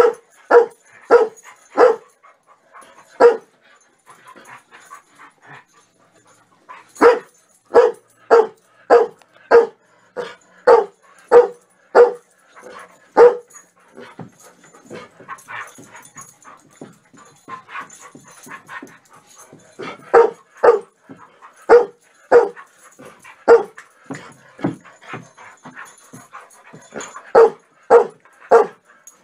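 Dog barking during rough play with another dog: runs of sharp barks about two a second. The runs break off at a few points before starting again.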